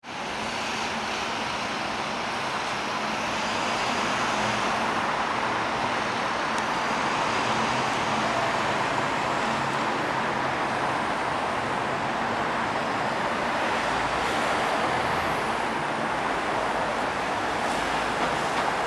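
Steady city traffic noise: a continuous wash of passing cars and other road vehicles.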